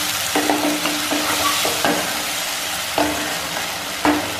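A wooden spatula stirs and scrapes potato and tomato pieces in a spice paste, sizzling in a non-stick kadai, with a steady frying hiss. A few sudden knocks come at irregular moments as the spatula hits the pan.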